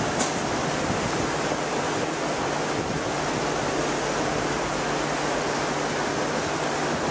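Steady rushing noise, with a low steady hum underneath and one brief high click just after the start.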